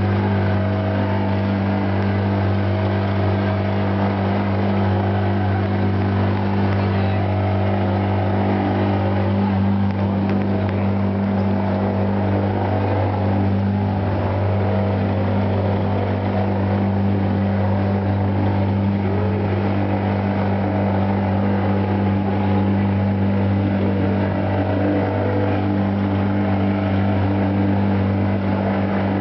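Motor launch's engine running at a steady low drone under way, with the wash of water along the hull.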